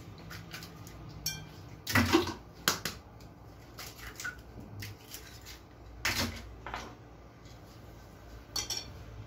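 A metal spoon clinking and scraping against a glass mixing bowl while ingredients are scooped and tipped in from plates. There are a few sharper clinks and knocks, the loudest about two and six seconds in.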